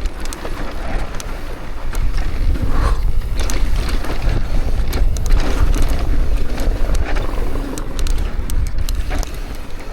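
Mountain bike riding down a dry, loose, sandy trail: tyres rolling and sliding over the dirt, with many sharp clatters as the bike rattles over bumps, and a steady low rumble of wind on the microphone.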